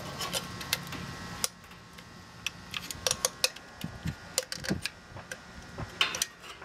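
Irregular light clicks and small rattles of hands handling wires and fitting the terminal cover back onto an air-conditioner compressor's electrical terminals, with a brief rustle near the end.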